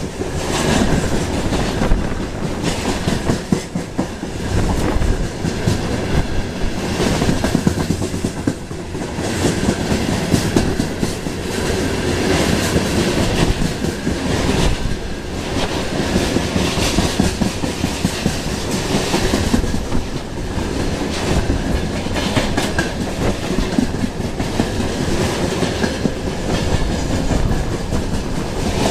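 Freight wagons (covered hopper cars and boxcars) rolling past at speed close by: a steady rumble of wheels on rails with a continual clatter of wheel clicks.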